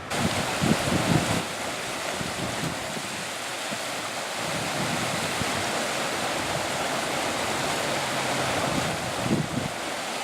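Fast-flowing river, swollen after heavy rain, rushing steadily, with a few low bumps of wind on the microphone near the start and near the end.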